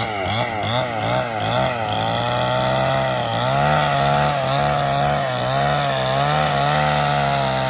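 Chainsaw engine running while sawing wood. Its pitch rises and falls quickly for the first couple of seconds, then holds steadier with slow dips as the saw works under load.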